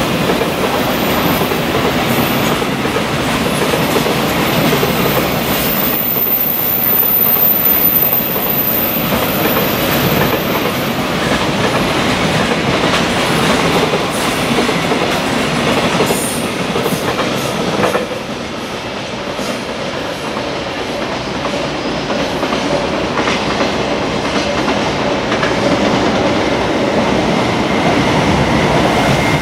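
A long freight train of container wagons rolling past, with a continuous rumble and clatter of steel wheels on the rails. The noise drops a little about eighteen seconds in.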